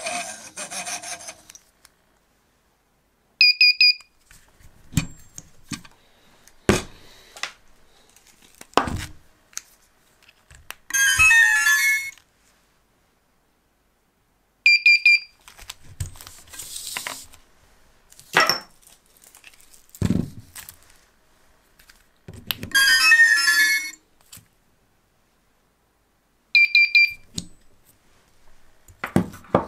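Brushless quadcopter motors, driven by KISS ESCs running custom-sound firmware, playing their power-up sounds as the battery is connected: three times a quick burst of high beeps, and twice, several seconds after the beeps, a longer custom sound clip about a second long played through the motors. Knocks and clicks from handling the quad and its battery plug come between.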